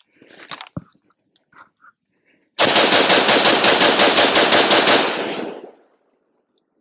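PSA Sabre AR-15 rifle fired in a rapid string of about a dozen shots over a little more than two seconds, the reports ringing off briefly after the last one. The rifle is firing out the rest of the magazine.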